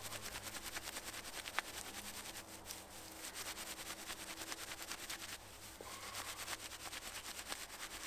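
Handful of dry cedar inner-bark fibres rubbed hard between the hands, a rapid rhythmic scratchy rustle of about six strokes a second, with a brief break about five seconds in. The fibres are being broken up into a fluffy tinder bundle for fire lighting.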